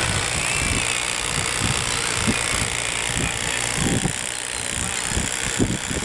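Wind buffeting the microphone: irregular low rumbling gusts over a steady hiss.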